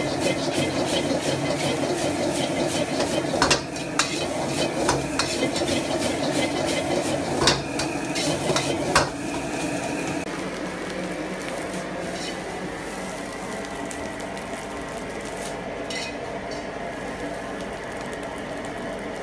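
Metal ladle scraping and clanking against a wok as fried rice is stir-fried and tossed, with sizzling. After about nine seconds the clanks stop, leaving a quieter steady background noise with a few light ladle taps as the rice is served.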